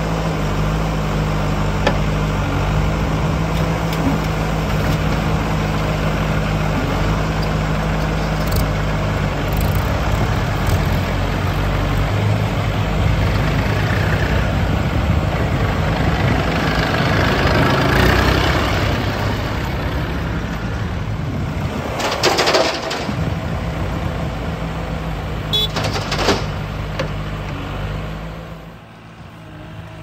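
Diesel engines of a backhoe loader and a New Holland farm tractor running steadily. The noise gets louder partway through as the tractor pulls its loaded trolley away, with a few sharp knocks later and a drop in level near the end.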